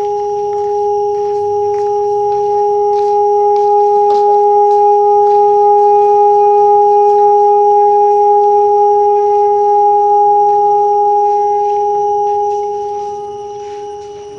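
Large hanging gong with a raised brass centre boss, rubbed by hand on the boss so that it sings: a steady hum of a low and a higher tone held together, swelling toward the middle and fading over the last couple of seconds.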